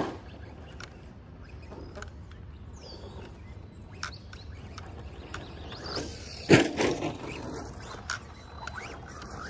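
Electric RC car running on a dirt track at a distance, with a few light clicks and one loud thump about six and a half seconds in.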